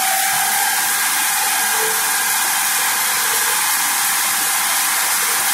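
Forklift with a paper-roll clamp running as its hydraulics lift a clamped kraft paper roll up the mast: a loud, steady hiss with a constant whine on top.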